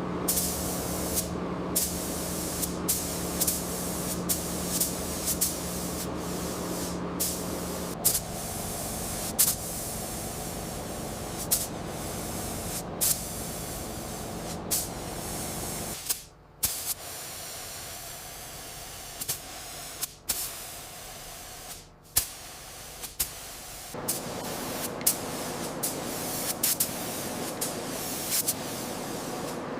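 Steady spraying hiss that changes character about every eight seconds, with sharp clicks scattered through it.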